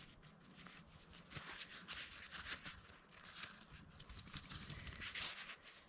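Faint, irregular soft ticks and scuffs from a person moving and handling gear on foot.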